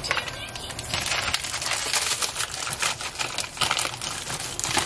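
Plastic bag of corn on the cob crinkling and crackling as it is handled and opened, a rapid, irregular run of sharp crackles that thickens about a second in.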